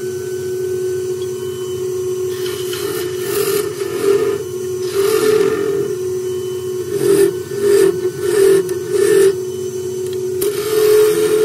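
Wood lathe running with a steady hum while a turning tool cuts the spinning oak blank in a series of short passes, each a hissing scrape, starting a couple of seconds in.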